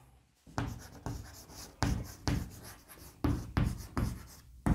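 Chalk writing on a blackboard: about a dozen short taps and scrapes, one for each stroke of the letters, starting about half a second in.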